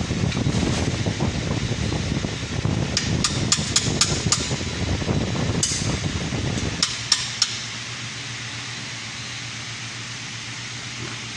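A series of sharp knocks or taps, about a dozen, over a steady low rumble that stops suddenly about seven seconds in; a fainter hum goes on after it.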